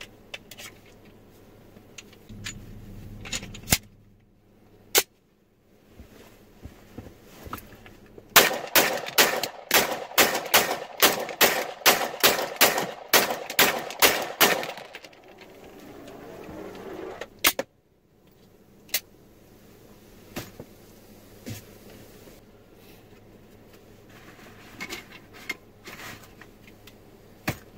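A handgun fired from inside a car's cabin: a rapid string of about twenty shots, roughly three a second for six or seven seconds, each crack echoing in the cabin. A couple of single sharp cracks follow a few seconds later.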